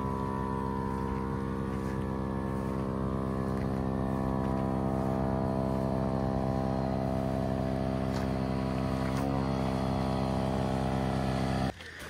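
Electric air pump running steadily with a motor hum while inflating the air beams of an inflatable tent, then cutting off suddenly near the end.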